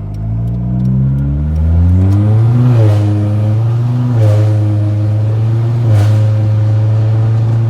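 Car engine revving: it climbs over the first couple of seconds, then is held at high revs with a couple of brief dips.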